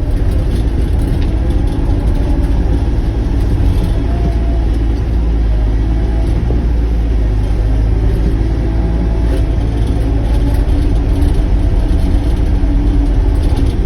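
Sany mini excavator's diesel engine running steadily as the machine works, a constant low rumble.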